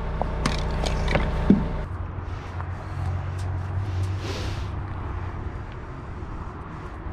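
Engine of a work-platform lift running steadily, with a few sharp knocks and clicks in the first two seconds and a brief hiss about four seconds in.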